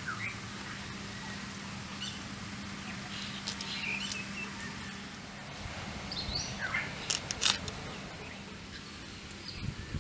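Birds calling in short chirps and whistles over a steady high-pitched hiss. About seven seconds in, a few sharp snaps as moringa drumstick pods are handled and broken.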